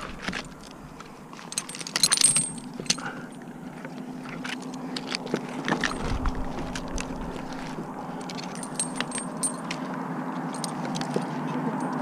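Metal climbing hardware, carabiners and a rope device, clinking and rattling as a climbing rope is handled with gloved hands, with a cluster of sharper clinks about two seconds in. A steady low hum runs underneath.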